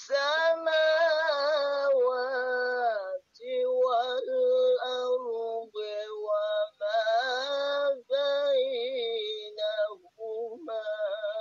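A single high voice singing long, wavering held notes in phrases with short breaths between them.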